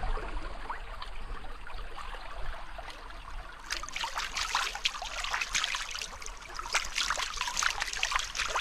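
Shallow stream running and trickling, with small splashes as hands rinse meat in the water; the splashing gets louder and busier about halfway through.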